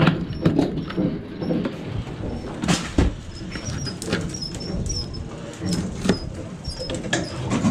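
Low steady drone of the boat's machinery, with knocks and scrapes as a snapper is spiked and cut with a knife on a plastic box lid; the sharpest knocks come about three seconds in.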